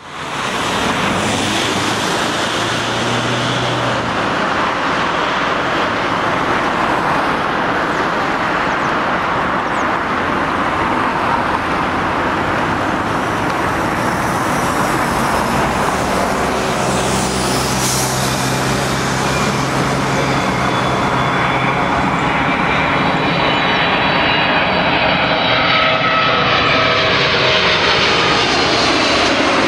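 Twin GE90 turbofan engines of a Boeing 777-300ER on landing approach: a loud, steady rush of jet noise that grows slightly as the aircraft comes closer. From about three quarters of the way through, several whining engine tones glide steadily downward in pitch as it passes.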